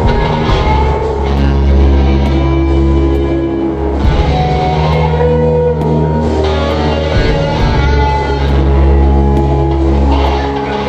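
Live instrumental rock music: an electric guitar plays long held chords over a heavy bass, each chord lasting a few seconds, with a faint steady tick about twice a second.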